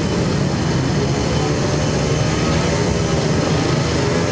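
Speedway motorcycle engine running steadily, without rising or falling in pitch.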